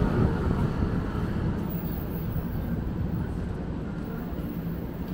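Low rumble of city traffic, a passing vehicle fading slowly into the distance.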